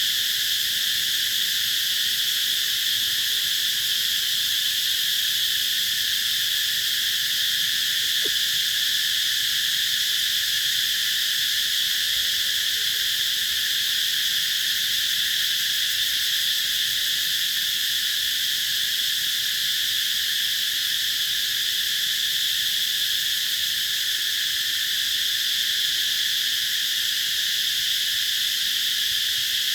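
Chorus of cicadas giving a very loud, continuous high-pitched buzz that holds steady without a break.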